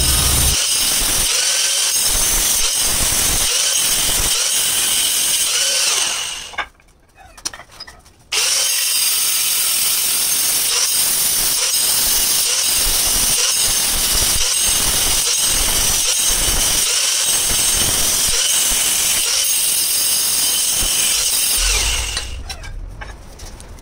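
Handheld angle grinder cutting through a green marble tile, a loud, steady, high-pitched grinding hiss. It stops for about two seconds around six seconds in, starts again, and winds down near the end as the tool is switched off.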